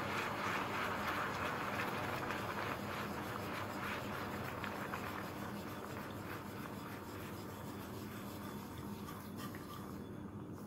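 Wire whisk beating cream into hot caramel in a stainless steel pan: fast, continuous scraping and clicking of the wires against the metal with the liquid sloshing, getting a little quieter toward the end.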